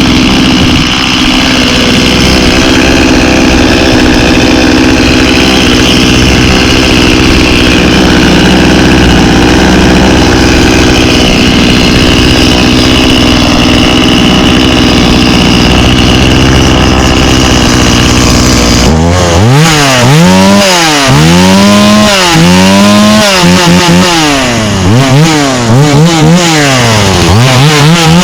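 Stihl 018C 32cc two-stroke chainsaw running just after a choke start: it idles steadily, then about two-thirds of the way in it is revved in a string of about eight quick throttle blips, each rising and falling in pitch.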